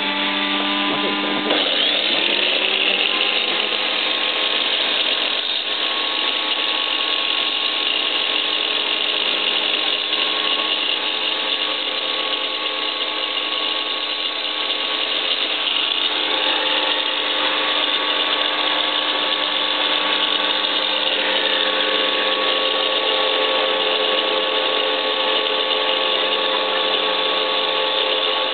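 An electric power tool's motor runs continuously with a steady whine made of several held tones. About a second and a half in, the pitch shifts briefly as the tool settles to a new speed.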